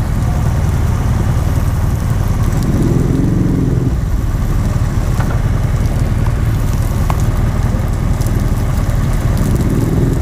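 BMW R1200GSA's boxer-twin engine running at idle as the bike creeps along at walking pace. A brief swell of a higher engine note comes about three seconds in.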